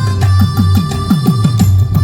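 Indian folk-style music: a rhythm of deep drum strokes that each bend downward in pitch, about four a second, over steady sustained tones.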